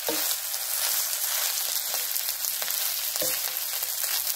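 Cooked rice with tomato paste sizzling in hot oil in a frying pan while it is stirred with a wooden spatula, a steady hiss with a few knocks and scrapes of the spatula against the pan.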